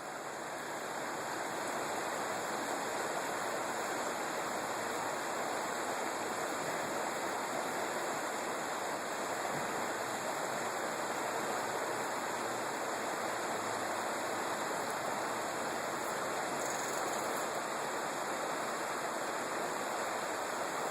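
Steady rush of a mountain creek flowing over rocks, swelling over the first couple of seconds and then holding even.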